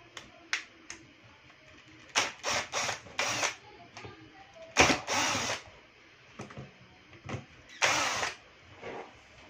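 Cordless drill-driver running in several short bursts, each a second or less, as it backs screws out of a corded electric drill's plastic housing.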